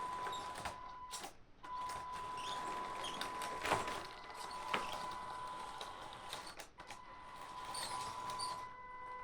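Electric drive of a 3D-printed 1:16 scale RC half-track model running: a steady high-pitched whine from the motor and speed controller, cutting out briefly twice, over light clicking and rattling of the drivetrain, with two sharper clicks near the middle.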